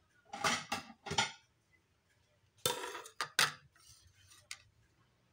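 Kitchen dishes and cutlery clattering: a couple of knocks and clinks in the first second or so, then a louder cluster of clatter about halfway through.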